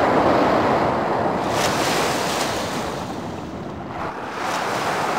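Waves washing in over shallow sand: a steady rush of surf that eases off about three and a half seconds in, then builds again.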